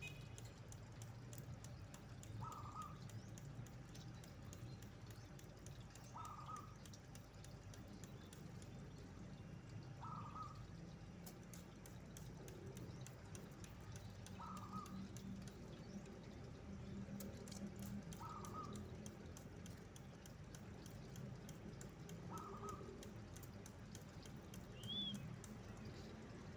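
A bird's short call repeated at even intervals of about four seconds, with one higher, short note near the end, over a faint steady low hum.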